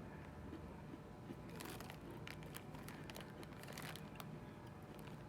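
Faint crisp crunches and crackles of someone biting into and chewing a small crunchy cookie, a scatter of short sharp clicks starting about a second and a half in.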